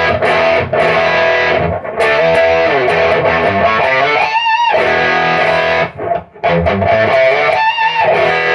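Electric guitar through a REVV Northern Mauler high-gain distortion pedal, blended to its Swedish Chainsaw (Boss HM2-style) side, playing heavily distorted riffs with chugging chords. Twice, about four and about seven and a half seconds in, a held note wavers with wide vibrato.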